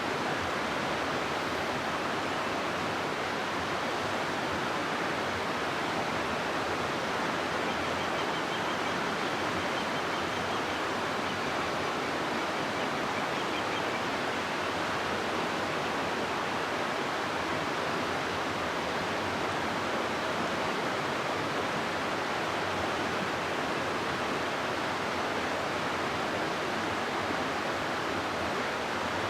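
River water rushing steadily through a rocky gorge, an even unbroken roar of flowing water.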